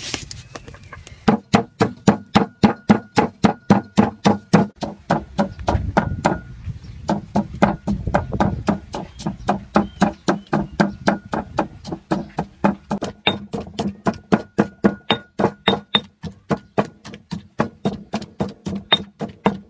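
Stone pestle pounding chillies, garlic and salt in a stone mortar: a steady run of knocks, about three to four a second, with a brief break about five seconds in.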